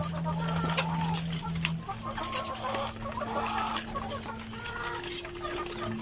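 Caged laying hens clucking, with scattered light clicks and a low steady hum that breaks off and comes back.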